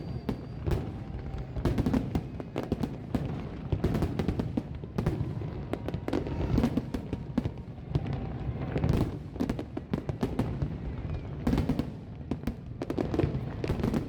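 Aerial fireworks display going off in rapid succession: a dense run of bangs and crackles over a continuous low rumble, without a break.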